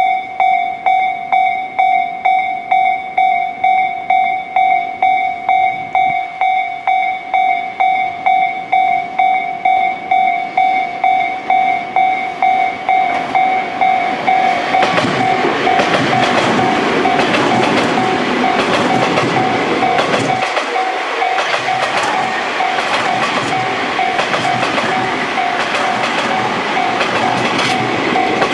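Japanese level-crossing warning bell ringing in a steady repeating ding, about one and a half strikes a second. About halfway through, a ten-car Tobu 30000 series electric train passes over the crossing at speed. Its wheels rumble and clack over the rail joints and become the loudest sound while the bell keeps ringing.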